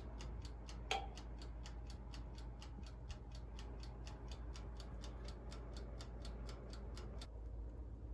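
Steady mechanical ticking, about four ticks a second, over a low hum, with one louder click about a second in; the ticking stops about seven seconds in.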